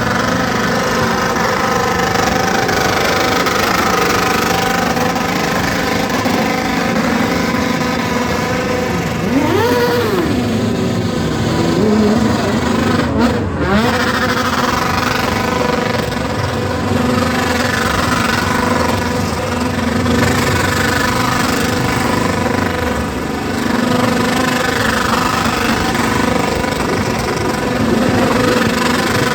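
Motorcycle engine running at held revs, with the pitch rising and falling several times as the throttle is blipped during a stunt.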